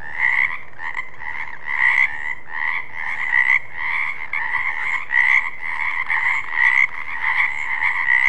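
Frogs croaking in a steady chorus of overlapping, pulsing calls, with louder peaks every half second to a second.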